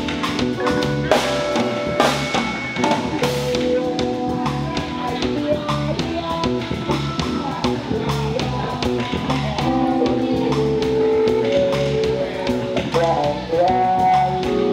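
Live band playing a song: a drum kit keeping a steady beat under electric guitar, electric bass and keyboard, with a singer's voice over the top.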